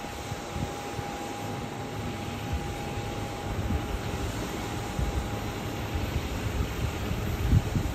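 Distant Airbus A319 jet on final approach, a steady rumble and hiss from its engines with a thin steady whine that fades out about halfway through. A low thump comes near the end.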